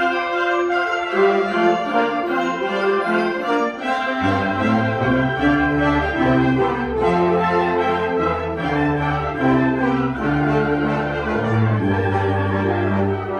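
A wind ensemble playing a concert piece, with woodwinds holding sustained chords; low brass and bass notes come in about four seconds in.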